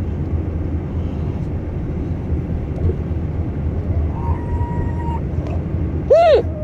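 Steady car-cabin road rumble. A faint held vocal tone comes about four seconds in, then near the end a single short loud hiccup whose voiced pitch jumps up and drops back.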